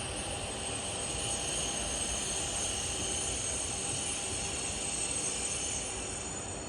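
SNCF train moving slowly through the station: a steady low rumble with steady high-pitched whining tones over it.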